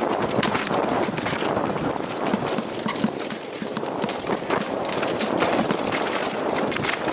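Mountain bike descending a dirt trail at speed, heard through a helmet-mounted action camera: a steady rush of tyres over dirt with a constant rapid clatter of knocks and rattles from the bike over the rough ground.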